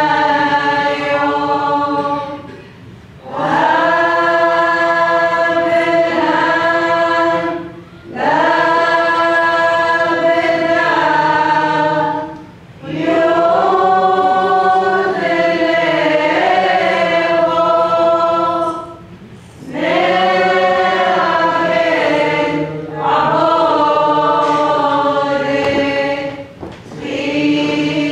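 Church choir singing a liturgical hymn unaccompanied, in long held phrases with short breaks between them.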